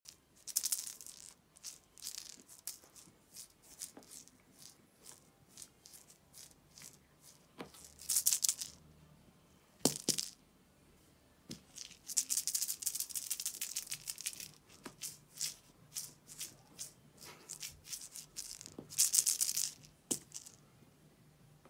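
Cat toy rattle ball, shaken in several short bursts of rattling and rolled across a carpet, with scattered light clicks between the bursts.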